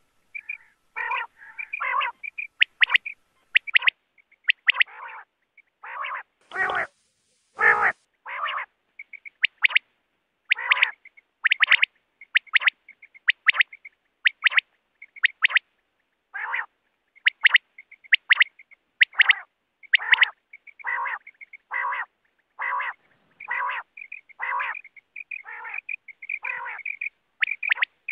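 Quail calling over and over in a series of short calls, about one or two a second, with thin high notes mixed with fuller, lower ones. Two louder, hissier calls come about a quarter of the way in.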